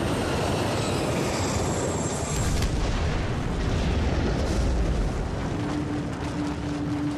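Dramatized sound effect of a Chinook helicopter crashing into a hillside: a long rumbling boom with crashing noise. About five and a half seconds in it gives way to a steady low music drone.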